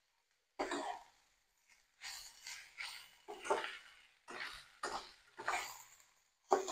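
Perforated steel spatula scraping and tossing fried rice in a stainless steel wok, about ten short scrapes at uneven intervals, with near silence between them.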